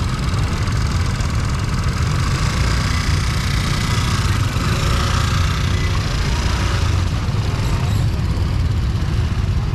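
Busy market-street background noise: a steady low rumble of motorbike and vehicle engines running, with faint voices in the mix.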